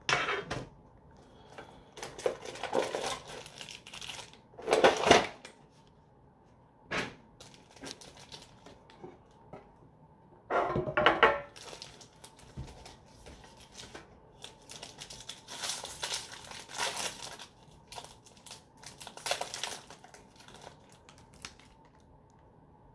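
Plastic packaging crinkling and Yu-Gi-Oh! trading cards being handled, in irregular bursts; the loudest come about five and about eleven seconds in.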